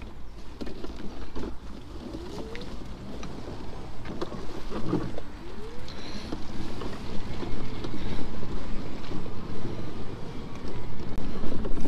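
Mini Crosser off-road mobility scooter driving through sticky mud. Its electric drive whine rises and falls in pitch as the speed changes, over the wet sound of the tyres in the mud and frequent knocks from the bumpy track.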